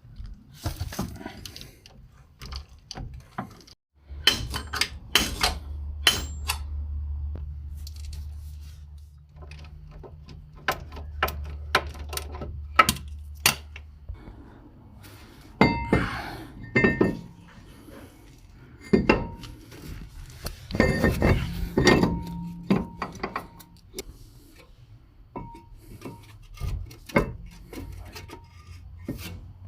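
Metal tools and parts clinking and knocking during wheel bearing work, with some strikes ringing briefly. A steady low hum runs for about ten seconds, starting about four seconds in.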